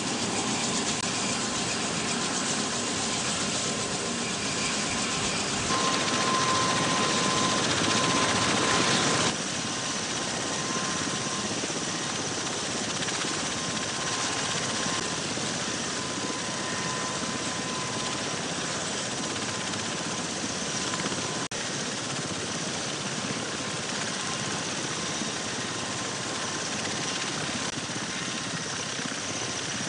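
Tiltrotor aircraft's rotors and turbine engines running, a steady rotor noise with a high whine through it. The sound changes abruptly twice in the first third.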